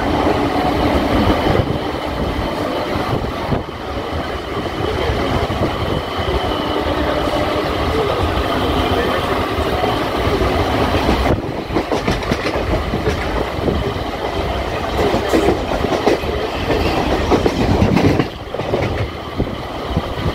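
Electric suburban local train running steadily, its wheels clattering over the track.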